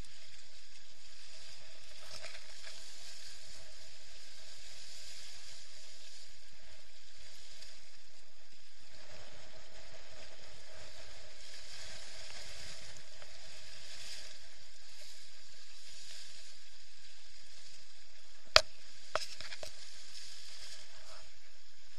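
Steady hiss of water and spray rushing past a Hobie Adventure Island sailing kayak's hull at about 14 km/h in strong wind. There is a sharp knock about three-quarters of the way through, with a lighter one just after.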